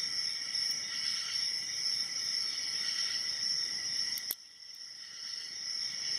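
Lock picking a pin-tumbler padlock: a hook pick and tension wrench make faint clicks and scraping in the keyway, with one sharp click about four seconds in. A steady high-pitched trill runs underneath throughout.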